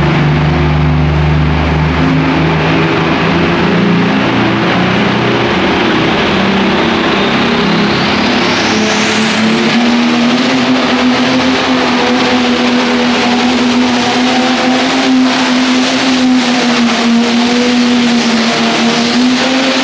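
Ford pulling tractor's engine running at full throttle under load as it pulls a weight-transfer sled down the track. About eight seconds in, a high whine climbs and then holds steady over the engine.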